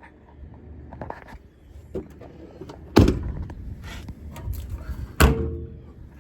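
Two loud metallic bangs from the service truck's steel utility-body compartment doors being swung and latched, about two seconds apart. The second bang rings briefly, and lighter clatter of handling comes between them.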